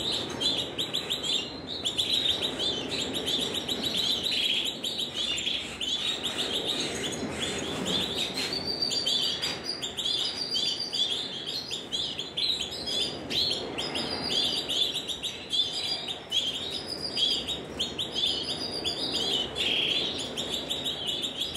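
Many Timbrado Español canaries chirping and calling in their breeding cages: a dense, unbroken stream of quick high notes, with short repeated phrases over the top from about the middle on.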